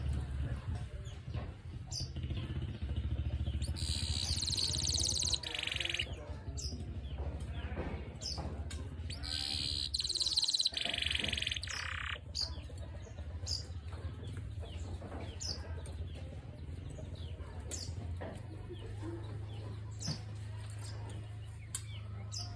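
Domestic canary singing: two long, dense bursts of song about four and about ten seconds in, with short scattered chirps between them, over a steady low hum.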